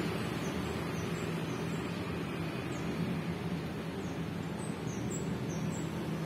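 Steady hum of road traffic from passing engines and tyres, with short high chirps from small birds now and then, most of them in the second half.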